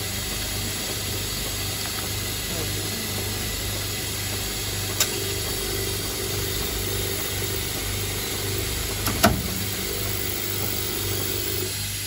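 Automatic corner-connector screw-assembly machine running with a steady hum, with a sharp mechanical click about five seconds in and a louder double click a little after nine seconds.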